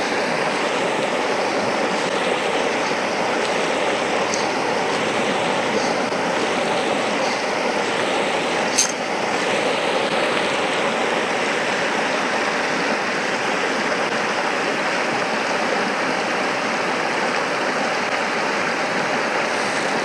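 Shallow mountain stream running over a stony bed, a steady rushing, with one sharp click about nine seconds in.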